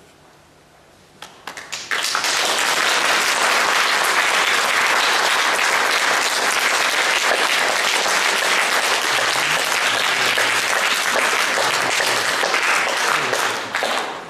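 Audience applauding: a few scattered claps, then full steady applause from about two seconds in, dying away near the end.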